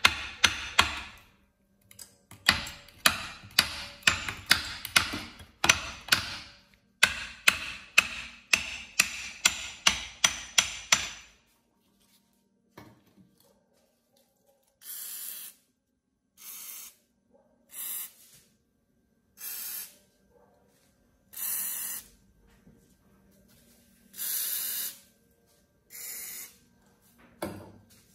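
Ball-peen hammer striking a rusted steel lever on an old Honda PAL motorcycle's engine casing, about two sharp metal knocks a second for roughly eleven seconds. After a pause, seven short hissing bursts from a spray can.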